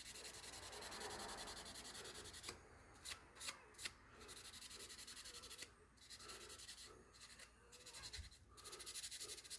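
Faint scrubbing on the steel blade of a garden lopper or pruner, rubbing off rust and grime with isopropyl alcohol. It comes in runs of rubbing broken by short pauses, with a few quick short scrapes about three seconds in.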